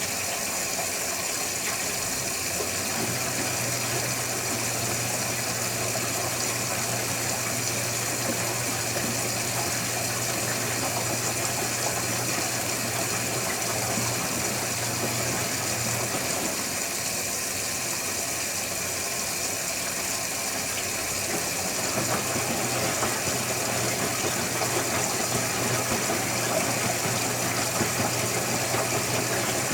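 Electrolux Wascator W355H commercial washing machine running mid-cycle: a steady wash noise with water sounds and a low motor or pump hum. The hum starts a few seconds in, drops out about halfway, and comes back a little louder near the end.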